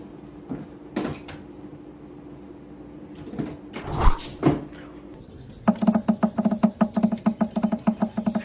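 A faint steady hum with a few scattered knocks and a louder rustling event about four seconds in, then fast rhythmic music starting about two-thirds of the way through.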